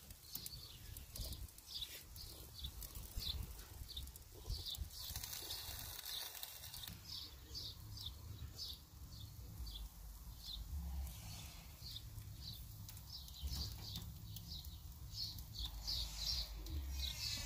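Birds chirping over and over in short, high notes, over a low rumble.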